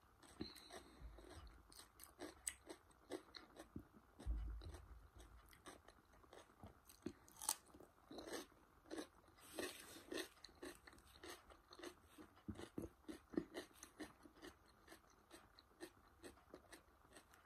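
Raw cucumber stick bitten and chewed close to the microphone: quiet crisp crunches and wet mouth clicks throughout, with a soft low thump about four seconds in.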